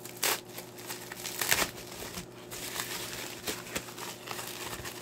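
Clear plastic packaging crinkling and rustling as it is handled and pulled open, in irregular bursts with a couple of louder crackles, one near the start and one about one and a half seconds in.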